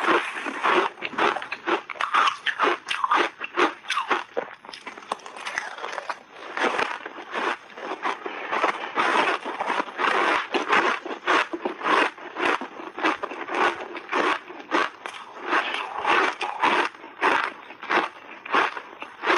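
Refrozen shaved ice being chewed in big bites, picked up close by lapel microphones: a continuous run of sharp crunches, about three a second, with a metal spoon scraping ice in a plastic tub.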